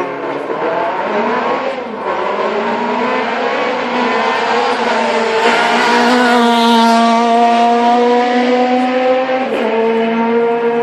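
Rally car engine at high revs driving past at speed, shifting gear in the first couple of seconds and loudest as it passes about six to seven seconds in, then holding a steady high note.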